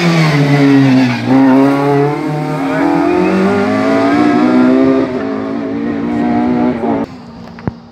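Rally car's engine slowing for a junction corner, then accelerating away hard. The engine note falls about a second in, climbs through the revs, drops at a gear change about five seconds in, and fades suddenly near the end as the car goes off down the road.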